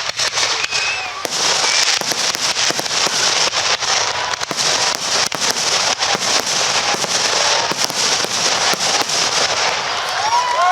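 Aerial fireworks display going off in a dense, continuous barrage of many rapid pops and crackles.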